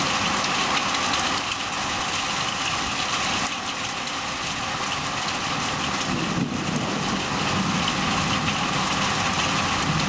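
Heavy rain falling in a thunderstorm: a steady, even hiss.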